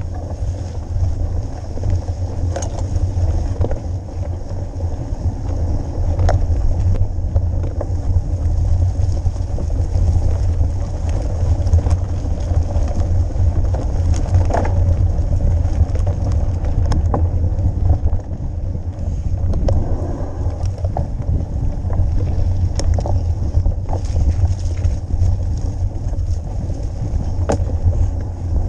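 Wind buffeting the microphone of a camera on a mountain bike being ridden, a heavy low rumble with the tyres running over rough ground, and scattered sharp clicks and rattles from the bike.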